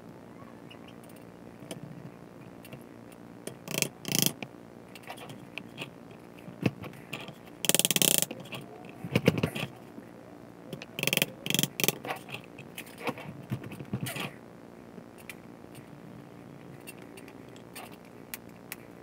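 Workbench handling noises as tools and a guitar neck are moved about: a run of sharp clicks, knocks and scrapes through the middle, the loudest a longer scrape about eight seconds in, over a steady faint hum.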